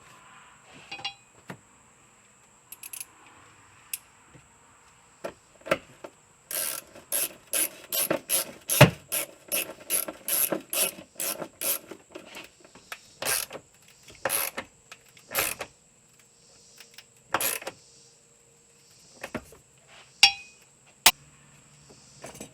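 Ratchet wrench clicking as it turns down the freshly greased battery hold-down bolt: scattered clicks, then a quick steady run of strokes for several seconds in the middle, then a few single clicks.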